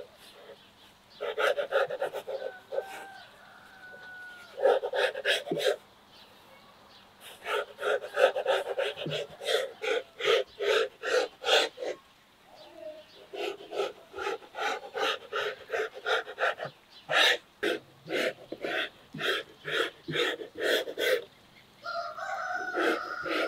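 Rapid rhythmic panting of an animal, about four breaths a second, in bouts of several seconds broken by short pauses.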